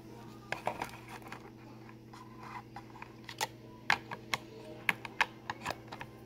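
Irregular light plastic clicks and taps as the body shell of an Element RC Enduro 24 1/24-scale crawler is handled and pressed down onto its chassis and body posts, about a dozen sharp clicks in all.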